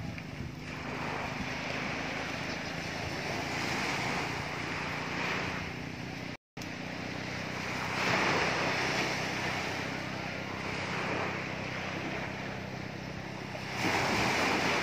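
Sea waves washing ashore in surges, the loudest about eight seconds in and near the end, with wind on the microphone and a steady low engine hum underneath. The sound drops out for a split second midway.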